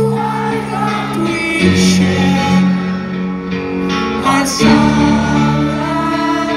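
Live rock band playing a slow song from the stage: held guitar chords with a voice singing over them, the chords changing about a second and a half in and again near the middle. Heard from the audience, through a phone's microphone.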